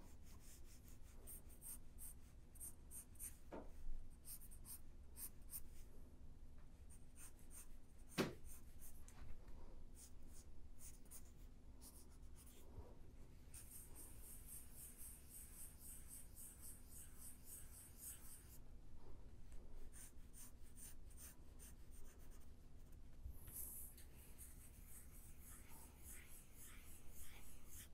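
Pencil drawing on paper, faint: repeated short strokes scratching, with a longer stretch of steady back-and-forth hatching in the middle. Two sharper ticks stand out, about 4 and 8 seconds in.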